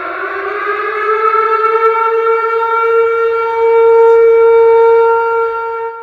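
A siren winding up: its pitch rises over the first two or three seconds, then holds steady and loud, and it fades away near the end.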